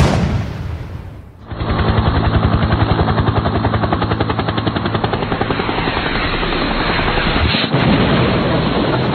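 A sudden loud bang that fades over about a second and a half, then a fast, steady run of pulses, many beats a second, that carries on without a break.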